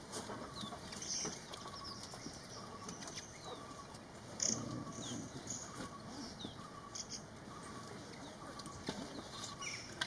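Small birds calling: many short high chirps, some sliding down in pitch, with a few sharp clicks, the loudest about four and a half seconds in.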